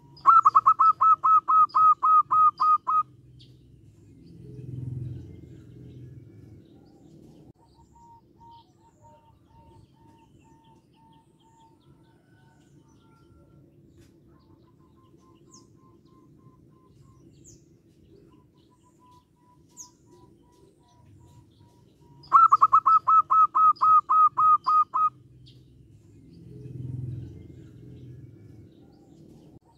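Zebra dove (perkutut) calling: a rapid run of about a dozen loud, evenly spaced notes lasting about three seconds, given twice, the second about 22 seconds after the first. A low, muffled sound swells and fades a couple of seconds after each run.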